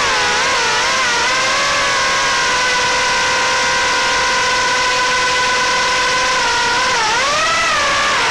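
Brushless motors and propellers of a 3-inch FPV quadcopter (1105 5500kV motors) whining, heard from onboard over a loud rush of prop wash. The whine wavers in pitch with the throttle at first, holds level through the middle, then dips and climbs again near the end.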